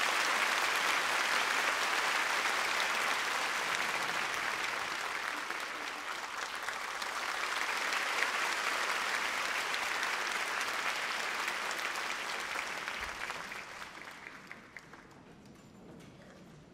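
Audience applauding, steady for about thirteen seconds and then dying away over a couple of seconds, leaving a few faint knocks.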